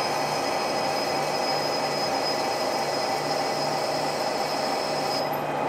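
Metal lathe running and cutting a chamfer on the end of a turning steel tube. A steady machine hum pulses gently, with a thin high whine over it that stops about five seconds in.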